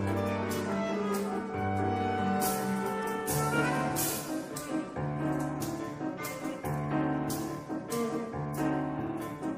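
Instrumental music with brass over a bass line that changes note about once a second, and regular percussion hits.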